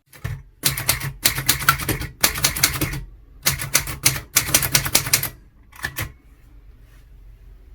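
Royalite manual typewriter typing: two quick runs of keystrokes of about two seconds each, then a couple of last single strikes.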